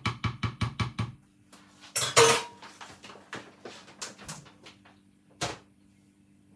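A metal spoon tapping rapidly against a plastic blender cup for about the first second, then a louder clatter of kitchenware about two seconds in, followed by scattered light clicks and one sharp knock near the end.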